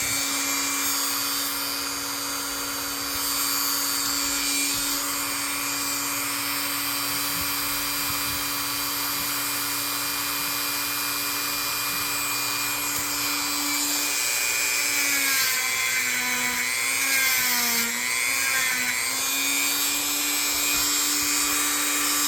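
Dremel rotary tool with a brush attachment running steadily, scrubbing grime out of the knife's blade channels. Its pitch dips and wavers several times in the last third as it is pressed against the work, and it spins down at the very end.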